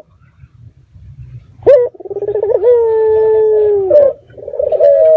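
A puter (Barbary dove) calling. About a second and a half in it gives a sharp note, a short rolling stutter, then one long held coo that sags slightly in pitch and ends near the four-second mark. A second call starts near the end, over a faint low hum.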